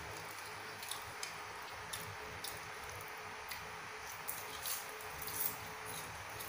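Faint crunching and scattered sharp clicks of a person eating crispy batter-fried vegetables dusted with seasoning powder, over a faint steady hum.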